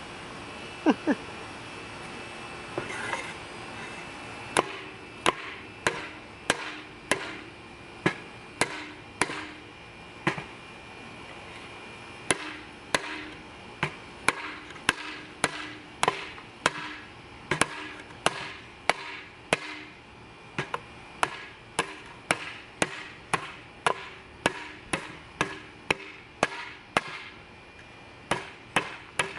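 A heavy 80CRV2 steel chopper knife chopping into the end of a 2x4, a long run of sharp, regular blows at roughly one or two a second, starting about four seconds in.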